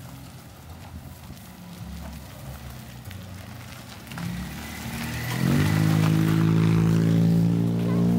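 Car engine close by, quiet at first, then rising in pitch about five seconds in and running loud and steady.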